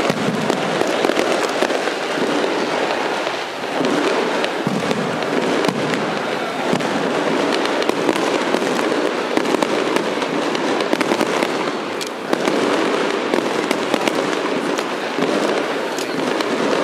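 Aerial fireworks going off continuously: a dense barrage of bangs and crackling, easing briefly twice.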